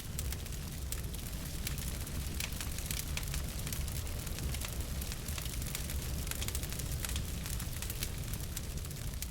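Wood fire in a fireplace crackling, with frequent irregular pops and snaps over a steady low rumble of burning.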